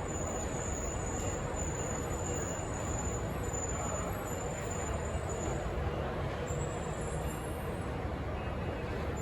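Steady rumble and hiss of subway station ambience on the platform, with a faint high whine that fades out about six seconds in.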